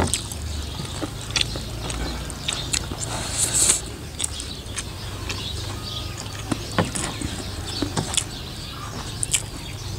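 Eating sounds: scattered small clicks and crunches of chewing and of dishes being handled, with a brief louder rush about three and a half seconds in, over a low steady hum.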